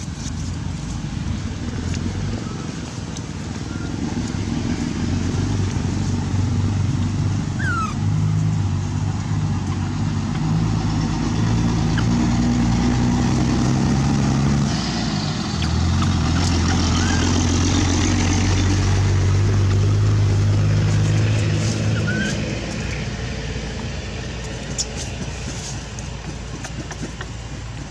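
An engine running with a steady low hum, growing louder about four seconds in and fading away after about twenty-two seconds.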